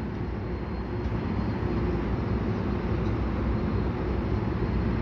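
Steady low rumble and hum of a GMD F59PHi diesel locomotive running with an EXO commuter train of multilevel coaches, growing slightly louder over the first couple of seconds.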